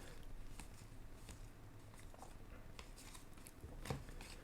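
Baseball cards being handled and flipped through: faint, scattered light clicks and slides of card against card.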